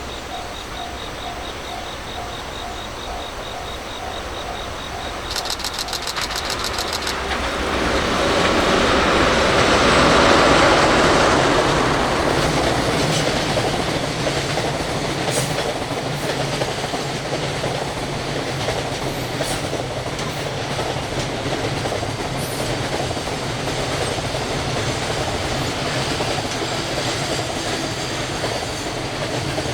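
A level-crossing warning bell rings in a steady repeating pattern, then a train approaches. It is loudest about ten seconds in and keeps running past with the steady noise of wheels on rail and occasional sharp clicks.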